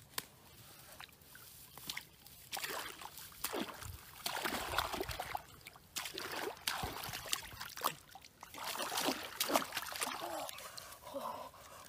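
Hands groping in shallow pond water at the bank: irregular sloshing and splashing that starts a couple of seconds in, with brushing of grass.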